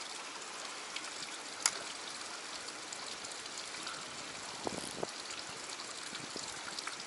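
Steady trickle and rush of a small stream running through a rock gorge, with a single sharp click about a second and a half in and a couple of soft ticks around five seconds.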